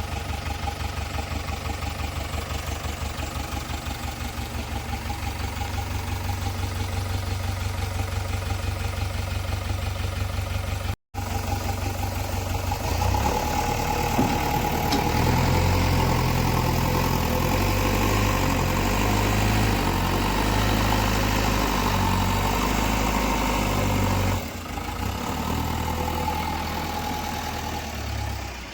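JCB 3DX backhoe loader's diesel engine running steadily at first, then louder from about halfway, its pitch stepping up and down as it works under load. It cuts out completely for a moment about a third of the way in, and dips briefly near the end.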